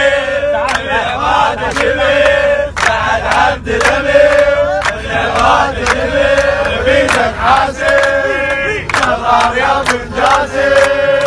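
A group of footballers chanting a victory song in unison, with held sung notes, and clapping along.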